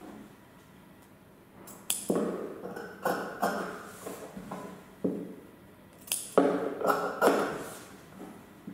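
Scissors cutting through cloth in a run of snips, each stroke a sharp click of the blades closing with a short rasp of fabric being sheared. The snips start about two seconds in and come in uneven bursts.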